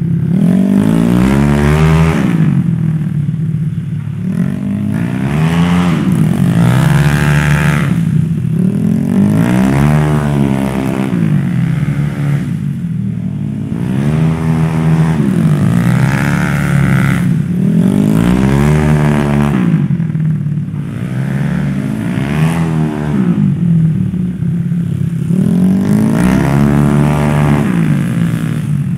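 Tuned Yamaha Mio scooter with its single-cylinder four-stroke engine bored up to 150cc, revving up hard and dropping back over and over as it accelerates out of each turn of a cone course. The pitch rises and falls every two to three seconds.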